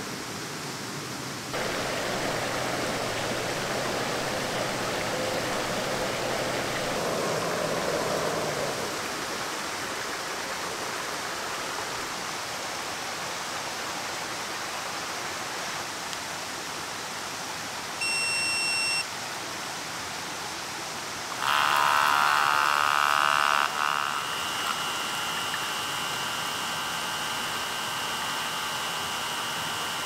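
Hot water pouring from a kettle for several seconds. Then one beep of about a second from an Outin Nano portable espresso machine, and a few seconds later its electric pump starts with a buzzing hum. The hum is loudest for about two seconds, then settles into a steady hum while the espresso is extracted.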